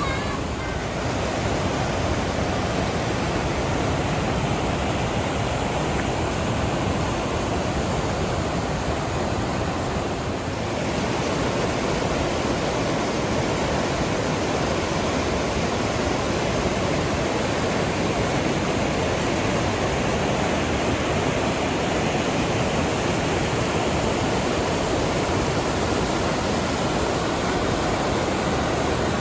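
Waterfall rushing: a steady, loud wash of falling water, dipping slightly about ten seconds in.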